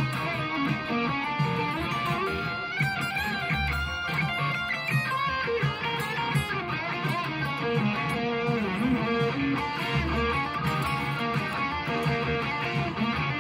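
Electric guitar played with a pick, a continuous run of changing chords and single notes.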